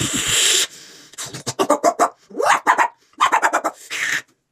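A person growling and snarling in imitation of a wolf: a loud, rasping growl at first, then several clusters of short, harsh growls.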